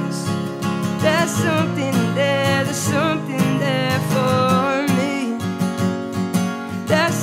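Acoustic guitar strummed steadily while a male voice sings over it in held, wavering phrases.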